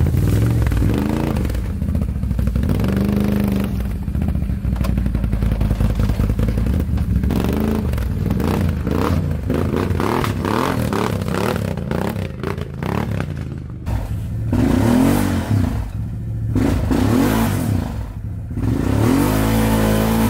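Can-Am ATV engine running at low speed and revving in short bursts as the quad crawls over loose rocks, with tyres clattering and scraping on the stones. Several rev swells rise and fall in the last few seconds.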